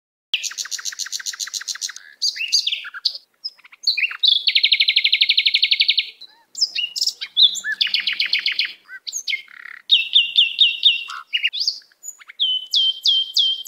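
Bird song: a string of varied phrases of fast trills, rapid runs of repeated chirps and quick upslurred notes, with short pauses between phrases, starting just after a moment of silence.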